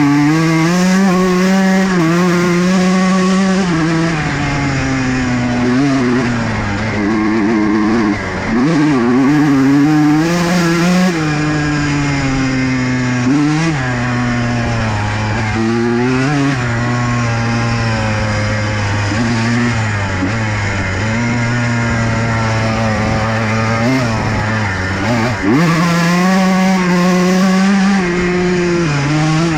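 Honda CR125 two-stroke single-cylinder dirt bike being ridden, the engine pitch rising and falling again and again as the throttle is opened and closed.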